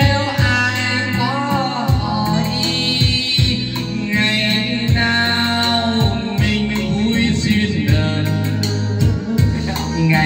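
A man singing karaoke into a handheld microphone, his amplified voice over a backing track with a steady bass beat.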